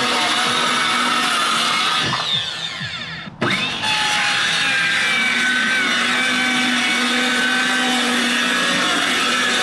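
Circular saw running and cutting through wood. About two seconds in the blade is released and spins down, falling in pitch; it is restarted a moment later, rising back to speed, and cuts steadily again.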